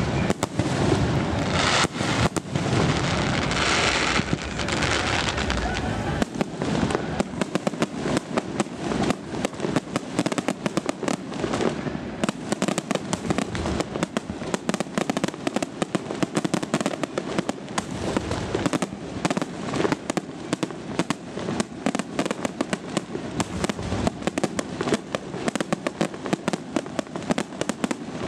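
Ponte Fireworks aerial display: a rapid, continuous barrage of shell bursts and crackling, thickening into a dense hissing crackle from about 2 to 6 seconds in.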